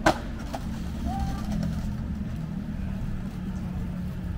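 City street traffic with a steady low rumble, and a single sharp click right at the start.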